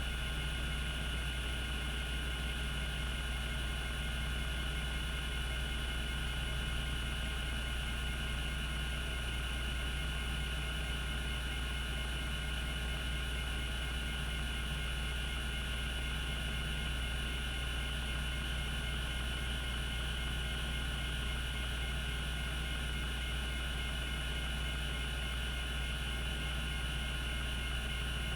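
Cogito Systems CG-912 10 MB two-platter hard drive spinning at its 3600 RPM operating speed: a constant low hum with steady high-pitched whines above it. There are no seek clicks from the stepper.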